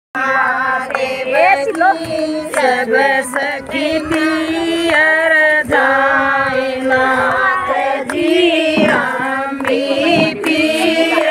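A group of women singing a Haryanvi devotional bhajan about Shiva and Parvati in unison, with hand claps keeping time.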